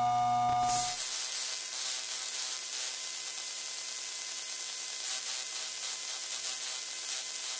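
Electronic circuitry noise: a steady electrical hum with a few held tones cuts off about a second in, giving way to a dense crackling static hiss with fine irregular ticks.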